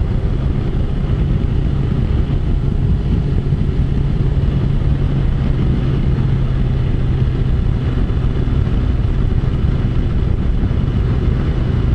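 BMW S1000-series motorcycle's inline-four engine running at a steady cruise on the open road, holding an even note that drops slightly about eight seconds in, under a steady rush of wind and road noise.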